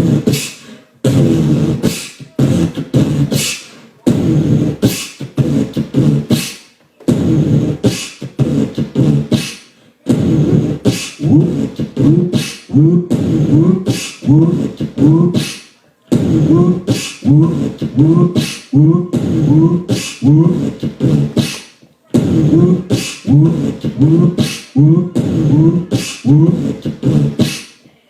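Live-looped beatboxing layered on a Boss RC-505 loop station: vocal kick, snare and hi-hat sounds cycling in a loop about two seconds long. From about ten seconds in the loop thickens, with a pitched vocal part swooping upward about twice a second.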